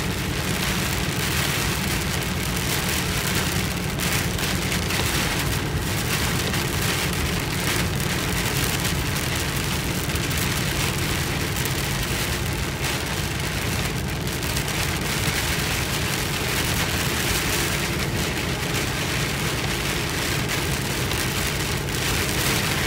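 Heavy rain pouring on a car's roof and windshield, heard from inside the moving car, with the car's steady low hum underneath.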